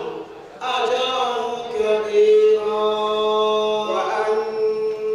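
A man chanting solo into a microphone in long, held melodic notes. There is a brief pause just after the start.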